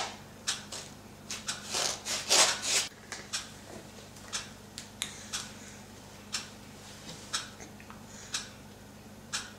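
A few quick rasping, rubbing strokes, then short faint ticks about once a second.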